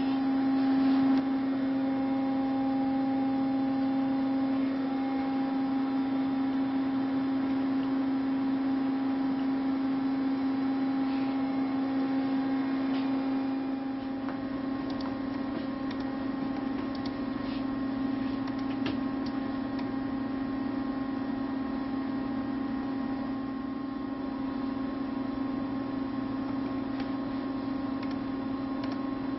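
Steady machine hum: a low drone with fainter higher steady tones, a little quieter after about fourteen seconds. A few faint clicks come in the middle.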